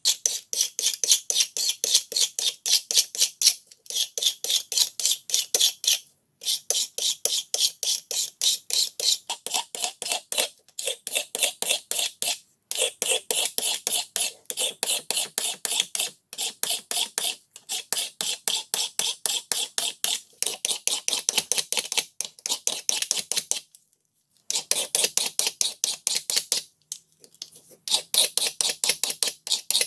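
Hand file scraping back and forth along an old wooden hammer handle in fast, even strokes, several a second, in runs of a few seconds with short pauses between them. This is the handle being filed down and cleaned.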